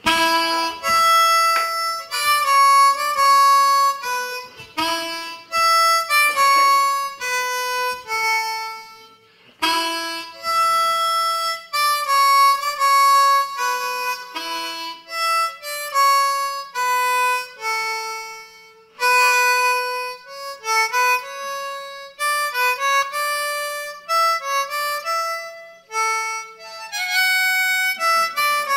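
Solo blues harmonica cupped against a microphone, playing phrases of held notes with a few bent notes and short pauses between phrases.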